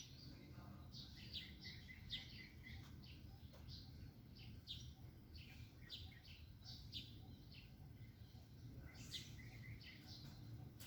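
Small birds chirping: many short, high notes that slide downward, a second or less apart, with occasional quick runs of lower notes, over a faint steady low hum.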